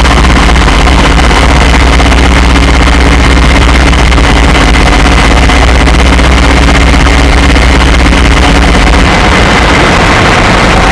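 Lira-8 software synthesizer, an emulation of the Soma Lyra-8, playing a dense noise drone: a steady deep hum and a few held tones under a loud wash of noise. The deepest hum drops away about nine seconds in.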